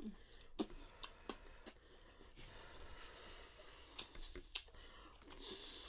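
Quiet eating sounds of people eating crab and lobster with their fingers: a few short, sharp wet clicks and smacks of mouths and fingers over a low hiss.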